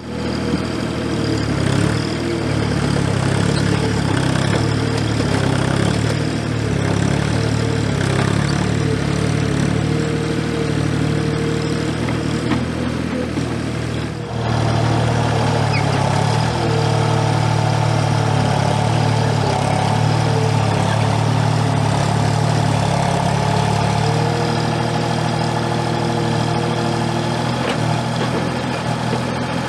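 Diesel engine of a Gehl 4835 SXT skid steer running steadily, with a brief drop in level about halfway through.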